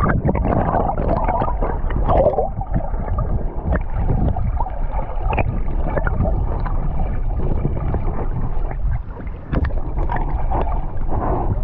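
Water heard underwater as a corgi paddles: a steady muffled rumble and churning water, with scattered small clicks and pops.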